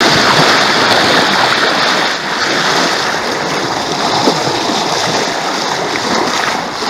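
Sea water rushing and splashing past the stern of a sailboat under way, a loud steady wash of noise.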